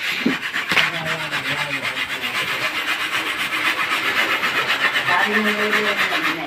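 Coconut flesh being grated by hand on a grater: a steady run of quick, even rasping strokes.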